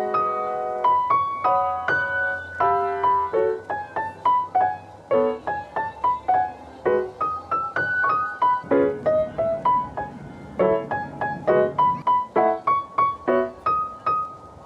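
Background music: a gentle solo piano piece, a stream of single struck notes that ring and fade.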